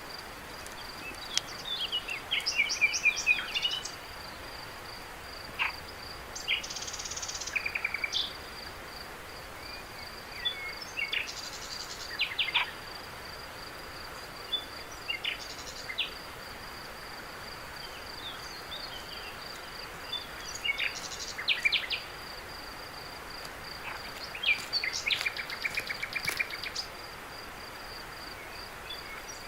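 Night ambience: a cricket's high, steady pulsing trill, with scattered short high chirps and trills over a soft hiss.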